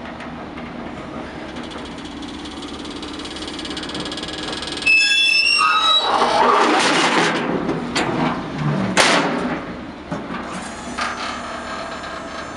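Truck hydraulic lift gate in operation: a steady hum, then metal squealing about five seconds in as the folded steel platform starts to open, followed by loud metal clatter and two sharp clanks as the platform unfolds and comes down.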